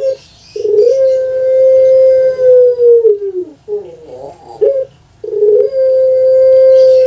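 Puter pelung, a Barbary dove kept for its long call, cooing: two long drawn-out notes, each held level for over two seconds and then dropping in pitch, with a few short broken coos between them.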